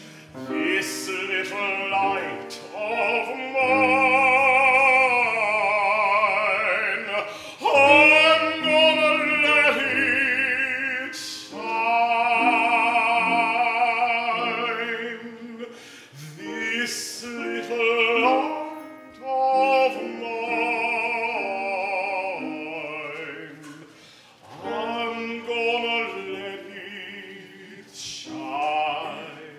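Music: a single voice singing a slow song with strong vibrato over steady instrumental accompaniment, phrase by phrase with short breaks between.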